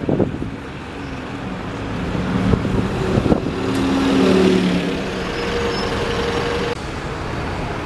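Double-decker bus pulling away and driving close past, its engine note rising as it accelerates and loudest about four seconds in, then easing as it moves off. A steady whine from the bus cuts off suddenly about a second before the end.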